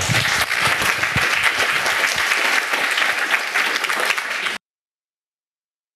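Audience applauding, a dense spread of many hands clapping that cuts off suddenly about four and a half seconds in.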